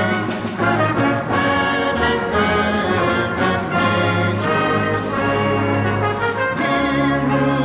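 Brass band playing a Christmas carol arrangement: full chords of sustained brass notes over a low bass line, changing every second or so.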